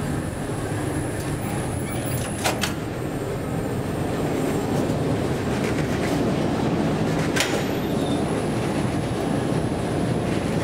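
Steady rumble of a metro train running in the station, growing louder about halfway through, with two sharp clicks.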